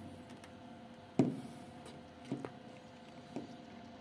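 Soft thumps and taps close to the microphone as a kitten bumps and brushes against the phone: one louder thump about a second in, then a few lighter taps, over a faint steady hum.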